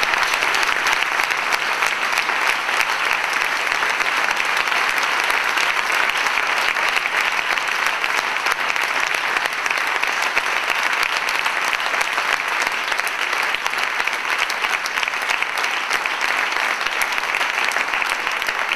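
Audience applause, many hands clapping steadily and without letup.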